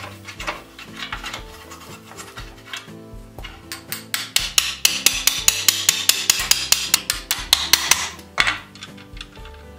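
Quick light hammer taps, about four or five a second, on a hot iron strap clamped around a wooden wagon part, starting about three and a half seconds in and ending with a heavier stroke near the end.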